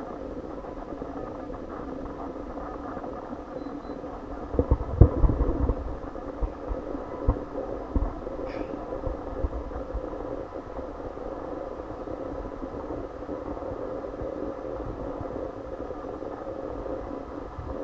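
Steady mechanical hum of indoor room tone, with a cluster of low thumps and bumps between about four and eight seconds in.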